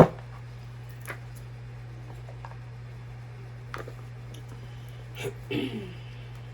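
Tarot cards being handled: a sharp knock right at the start, then a few light clicks and taps, over a steady low hum.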